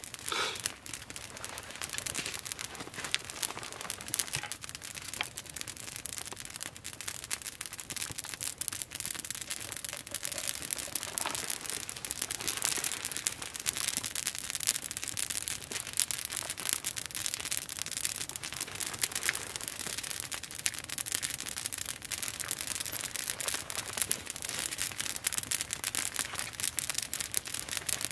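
Open wood campfire crackling steadily, a dense run of small pops and snaps over a hiss.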